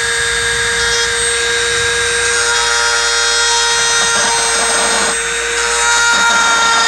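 Dremel rotary tool with a carbide bit running at a steady high-pitched whine while cutting out an opening for a switch.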